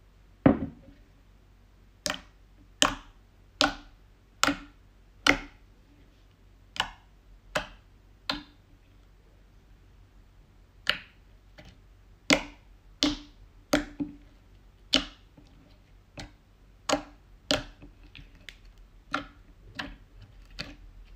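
Clear glitter slime being pressed and poked with fingers in a plastic bowl, giving sharp clicking pops, about one a second, with a short pause near the middle.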